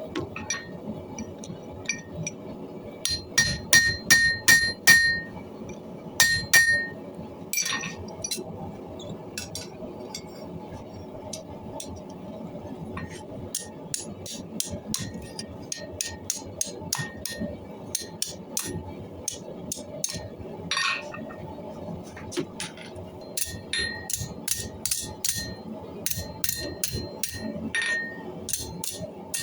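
Hammer blows on an anvil, forging spring steel from an old suspension: runs of sharp ringing strikes, heavier in a quick burst a few seconds in and again near the end, with lighter taps between.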